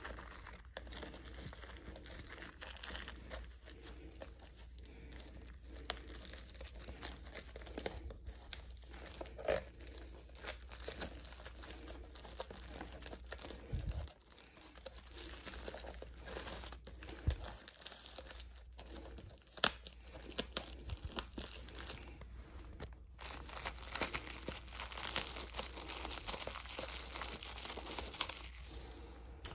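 Clear plastic shrink-wrap being torn and peeled off a VHS tape case, crinkling and crackling continuously with scattered sharper crackles.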